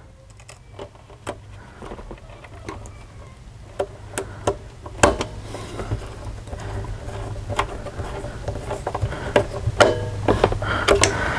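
Scattered small clicks and taps from handling a wire connector and screwing it into a VFD output terminal, over a low steady hum. The sharpest clicks come about halfway through and again near the end.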